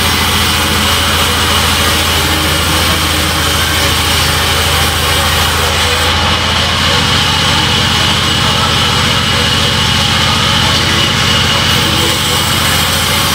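Large sawmill vertical band saw running with a loud, steady motor hum and blade hiss as a thick wooden slab is fed through the blade.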